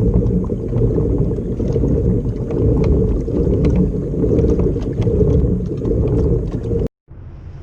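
Wind buffeting the microphone out on open water, a loud deep rumble with faint ticks above it. Just before the end it cuts out for a moment and gives way to a quieter steady rush of wind and water.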